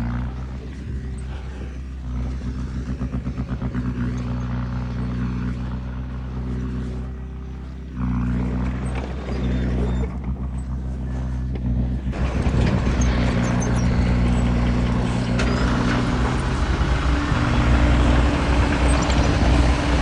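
Heavy diesel engines of earthmoving machinery running under load, a bulldozer and a dump truck working in mud. The engine note changes abruptly about eight and twelve seconds in, and it is louder and rougher after that.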